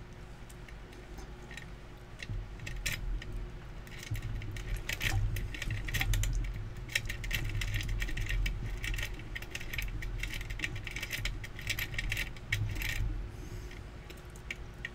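Lock pick working the pins of a brass deadbolt cylinder under a tension wrench: a dense run of light metallic clicks and scrapes, starting about two seconds in and thinning out near the end, with low bumps from handling the tools.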